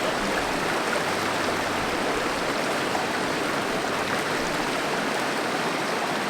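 Small mountain waterfall pouring steadily into a pool, an even rush of water, its flow low late in the summer.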